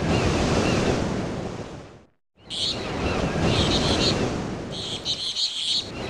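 Surf washing in with birds chirping. A wave swells and fades, the sound cuts out briefly about two seconds in, then the surf picks up again with repeated short, high bird chirps.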